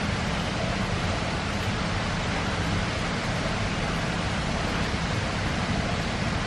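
Steady, even rushing noise with no clear breaks or distinct events.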